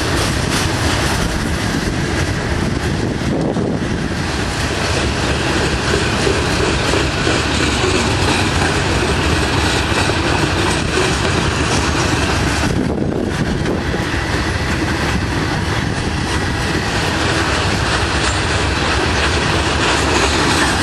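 A Norfolk Southern freight train's cars rolling past, steel wheels running on the rails in a steady, loud noise.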